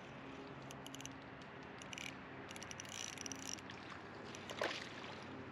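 Spinning reel being cranked to wind in line on a hooked small bass: a faint, intermittent whir from the reel's gears with short runs of light clicking.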